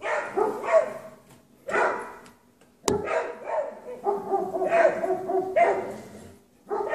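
Dogs barking repeatedly in short bursts, defensive alarm barking at a mountain lion close by, with a single sharp knock about three seconds in.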